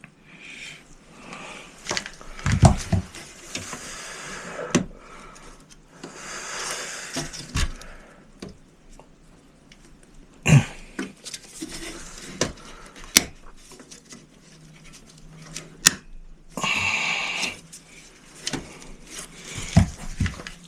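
Hands working inside a desktop computer case, pressing RAM modules into their memory slots to seat them: scattered sharp clicks and knocks, with rustling handling noise in between.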